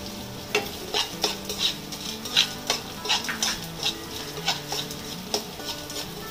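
Perforated metal spatula scraping and knocking against a kadhai as gond (edible gum) is stirred in hot ghee, with a frying sizzle underneath. The scrapes come irregularly, about two a second.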